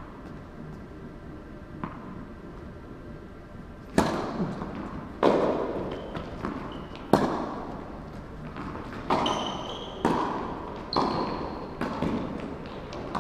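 Tennis balls struck by rackets and bouncing on an indoor hard court during a rally: about ten sharp knocks, one every second or two, each echoing round the hall, with a few short high squeaks in between.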